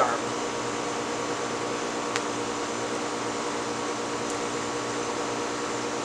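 Southern Fan Co. Tara ceiling fan running steadily at full speed: a constant motor hum with the rush of the blades, running on a bent blade arm that its supple flywheel compensates for. A single faint click about two seconds in.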